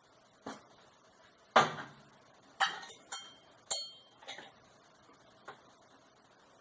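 Dishes and utensils clinking: about seven separate sharp knocks over several seconds, the loudest about a second and a half in, some with a short ring.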